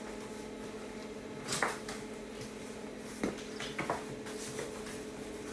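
A few short knocks and clatters of handling parts of a display fridge, over a steady low hum.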